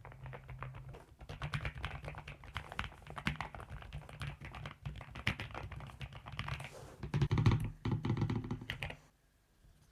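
Fast typing on a NuPhy mechanical keyboard: a dense run of key clacks, heaviest a little past halfway, stopping about a second before the end.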